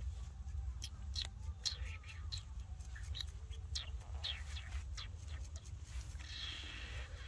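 Baby monkey giving a string of short, high-pitched squeaks, some falling in pitch, over a steady low rumble.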